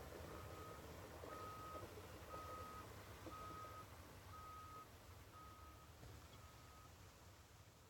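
Faint vehicle reversing alarm: seven evenly spaced single-pitch beeps, about one a second, growing fainter over the last two, over a faint low hum.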